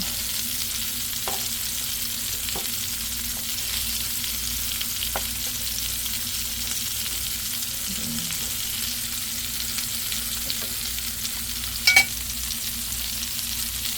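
Meatballs frying in a pan, a steady sizzle, with a few light clicks and one sharper click about twelve seconds in.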